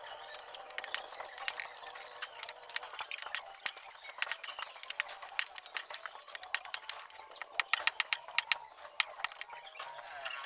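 Machete blade chopping small pieces of wood into kindling: quick, light strikes in irregular runs of several a second, thinning out near the end.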